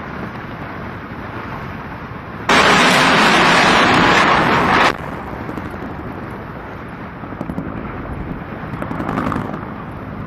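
M134 minigun firing one continuous burst of about two and a half seconds, starting and stopping abruptly, over a steady background rumble.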